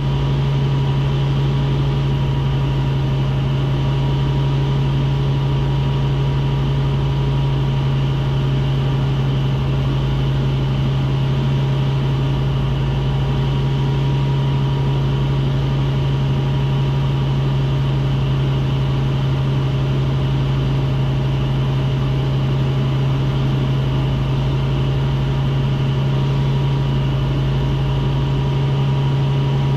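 Aquila A211 GX light aircraft's Rotax 912 engine and propeller running at a steady power setting, a loud, unchanging drone with a deep hum and a thin steady whine above it.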